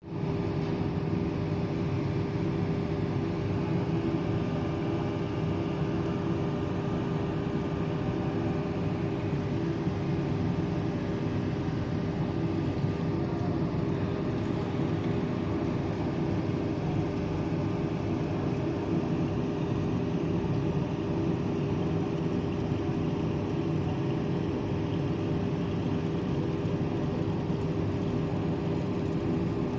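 Steady mechanical hum with a constant tone over a low rumble, unchanging throughout.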